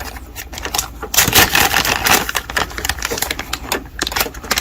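Rapid clicking and clattering of small hard parts being handled, most likely the printer's ADF hinges and their plastic and metal pieces, loudest in the middle stretch.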